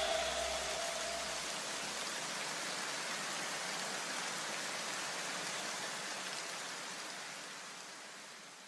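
A steady, even hiss like light rain, with the last faint notes of the music dying away in the first second or two; the hiss fades out near the end.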